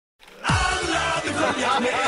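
Background music starting about half a second in, opening on a deep falling bass hit and running on as a steady beat.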